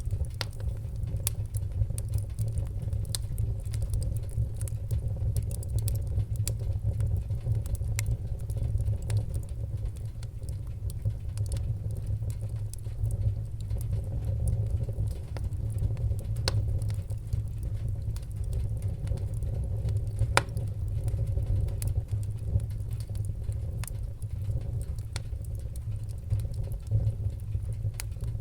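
Wood fire burning in a fireplace: a steady low rumble with scattered sharp crackles and pops, and a few louder snaps.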